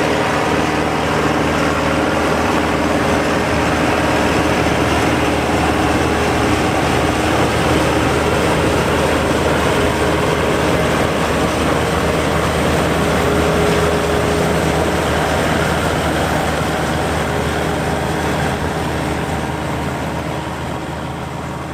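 John Deere 3020 tractor running under load, driving a John Deere 9501 pull-type combine whose threshing machinery runs steadily alongside the engine. The sound fades over the last few seconds.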